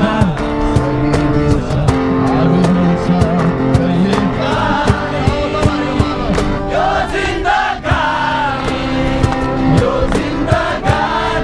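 Acoustic guitars strummed in a steady rhythm while a group sings a song together, led by a singer at a microphone.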